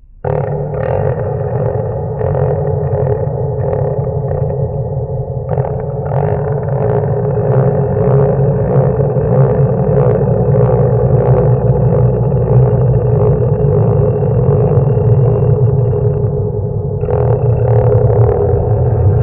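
Goat noises turned into a horror sound effect: a dense, distorted drone that starts abruptly, with a heavy low rumble and a regular pulsing about twice a second. The sound thins briefly near the end, then swells again.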